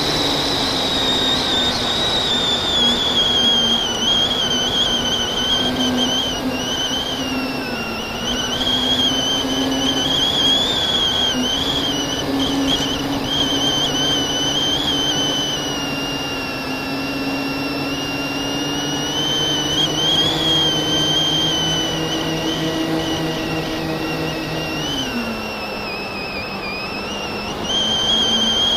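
FPV quadcopter's brushless motors and propellers whining steadily, the pitch wavering up and down with the throttle. The lower tones step down in pitch about 25 seconds in.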